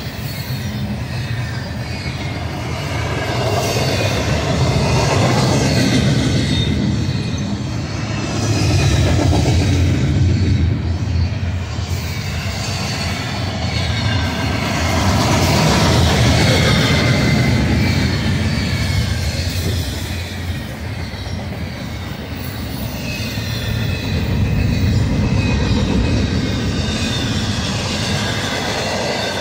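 Union Pacific double-stack container train rolling past, its steel wheels on the rails giving a continuous rumble that swells and fades as the well cars go by.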